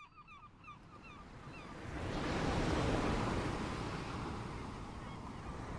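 Ocean surf swelling and easing back, the swell rising about two seconds in and again near the end. A run of short falling chirps fades out over the first second and a half.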